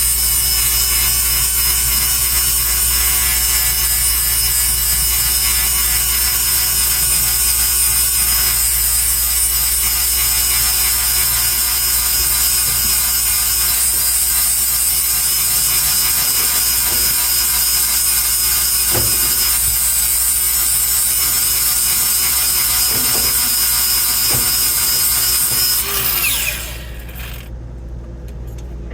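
A power grinder running steadily, sharpening a worn cutter tooth on a Bandit Beast 4680 with a continuous hiss of grinding metal. Near the end the grinding stops for a couple of seconds and the sound drops, then it starts again.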